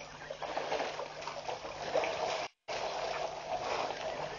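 Elephants drinking at a waterhole: water trickling and splashing as their trunks draw it up and spill it, with small scattered splashes over a steady watery hiss. The sound cuts out completely for a moment a little past halfway.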